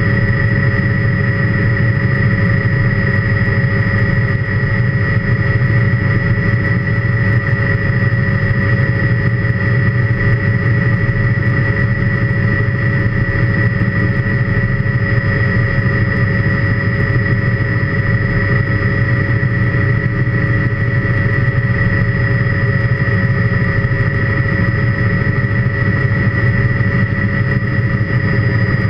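Helicopter in cruise heard from inside the cockpit: a steady, loud rumble of rotor and engine with a constant high whine over it, unchanging throughout.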